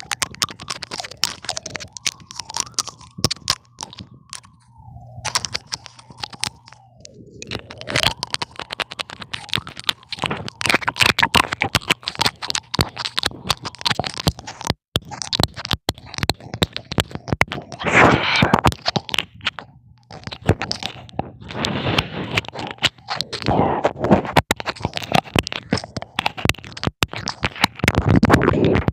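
Irregular scratching, crackling and scraping noises, dense with sharp clicks, with a faint creaking tone that glides up and down for a few seconds near the start.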